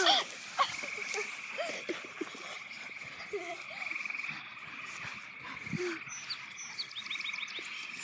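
A chorus of frogs trilling steadily, with short voice sounds and scuffles from children and a dog playing on grass, and a short run of quick chirps near the end.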